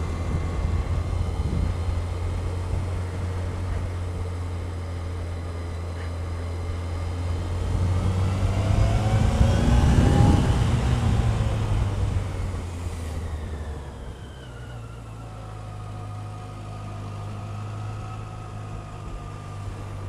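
Motorcycle engine running steadily while riding along a road. About halfway through, an oncoming van passes close by, its sound swelling and then fading. Near the end the bike's engine note drops and gets quieter.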